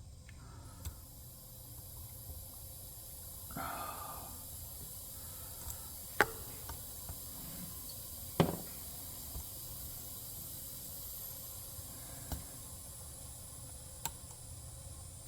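Pick and tension wrench working the pins of a Master Lock 410 lockout padlock: a handful of sharp, isolated metallic clicks, two louder ones about six and eight and a half seconds in, and a brief scrape about four seconds in, over a steady faint hiss.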